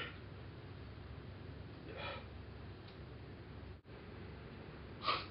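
Quiet room tone with a man's faint breaths as he cries into his hands: a soft breath about two seconds in and a sharper intake of breath near the end.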